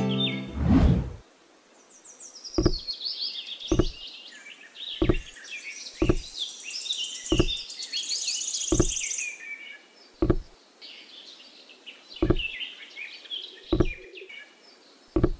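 Birds chirping and twittering throughout, with a low thud about a second in and then about ten light, sharp knocks at roughly even spacing, about one every second and a half.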